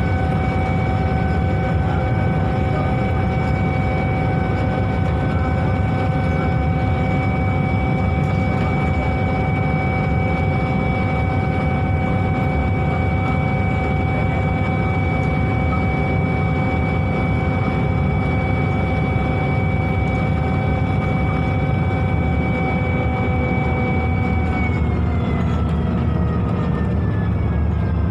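Steady high whine over the low engine rumble of a Scania K280UB bus, heard on board; the whine starts falling in pitch about 24 seconds in. The uploader takes it for the engine's cooling fan spinning extra fast because the engine is overheating.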